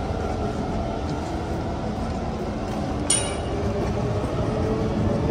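Inside a Kawasaki C151 MRT car running between stations: a steady low rumble with a faint motor hum. A brief metallic clink sounds about three seconds in.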